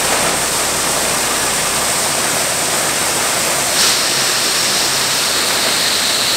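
Shelled corn pouring from a grain auger's spout into an aluminium hopper-bottom grain trailer, a steady rushing hiss, with the tone shifting slightly about four seconds in.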